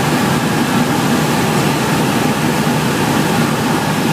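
Cessna 172's piston engine and propeller running with a steady drone, heard from inside the cockpit.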